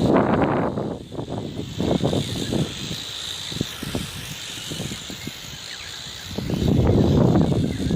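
Gusting wind buffeting the microphone, strongest at the start and again from about six seconds in, over the steady high whine of a quadcopter's spinning propellers.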